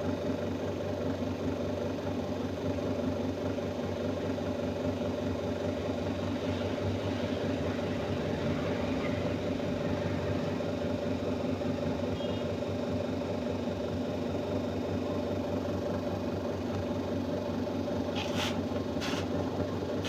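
Washing machine motor running with a steady, even hum that keeps one pitch throughout, with a few sharp clicks near the end.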